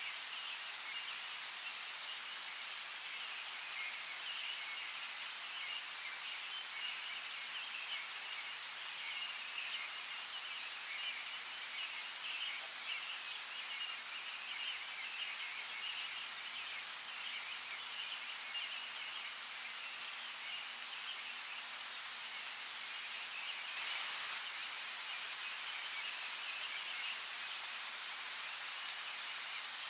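Steady rain with single drops ticking, and birds chirping in a busy chatter behind it that thins out near the end.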